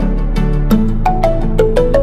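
Background instrumental music: a light tune of quick, short notes over held bass notes.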